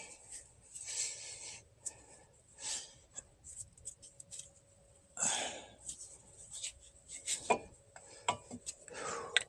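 Hand work at a truck's front wheel: scattered clicks and knocks of metal parts and tools being handled, with a longer scrape or rub about five seconds in and again near the end.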